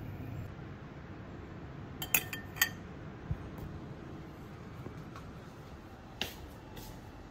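Tableware clinking: a metal utensil knocks against a ceramic bowl three times in quick succession about two seconds in, with lighter single clinks later, over faint room noise.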